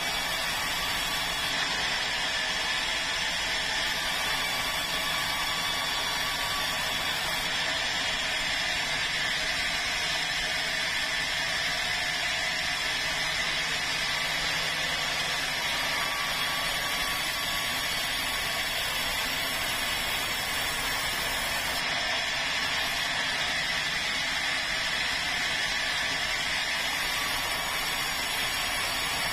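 Band sawmill running steadily, its vertical blade ripping lengthwise through a large red meranti log: a continuous high whine of blade in wood over the machine's running noise.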